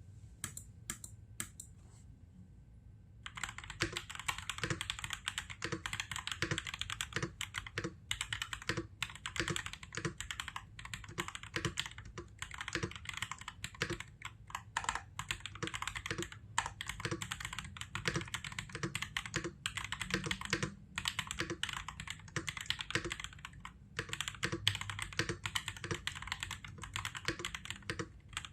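Typing on an MK870 mechanical keyboard with lubed and filmed Durock L7 linear switches, lubed stock stabilizers, a tape mod and ABS keycaps. A few single keystrokes come first, then about three seconds in, steady fast typing starts, with brief pauses.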